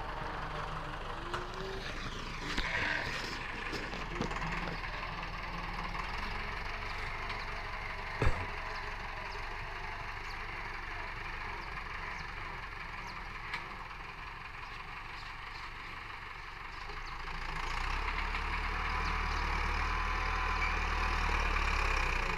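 Farm tractor's diesel engine running steadily while pulling a tine cultivator through dry ploughed soil. It grows louder and deeper about three-quarters of the way through. A single sharp knock sounds about 8 seconds in.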